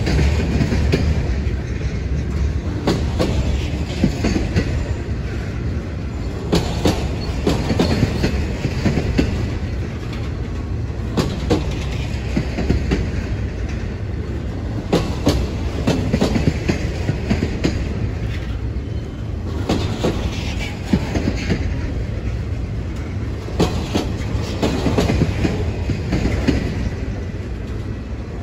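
Freight train of enclosed autorack cars rolling past: a steady low rumble of steel wheels on rail, broken by irregular clicks and knocks as the wheels cross rail joints.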